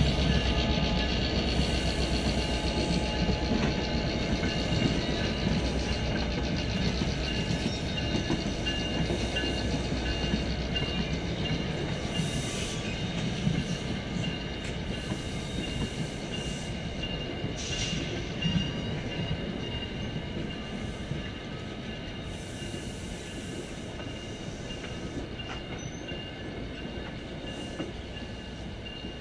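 Passenger train rolling away over the rails, its wheel-and-rail noise fading gradually as it recedes, with a steady high whine from the wheels and a few short sharp noises along the way.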